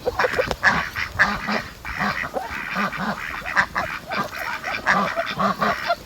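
A flock of domestic waterfowl calling, many short overlapping calls one after another.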